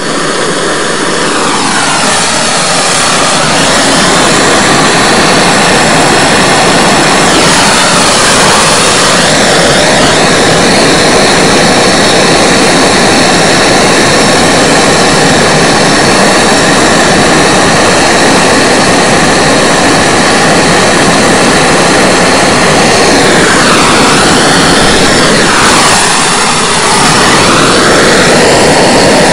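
MAPP gas hand torch burning with a loud, steady hiss, heating a copper joint for silver brazing. The sound builds over the first few seconds, and its tone swoops down and back up a few times.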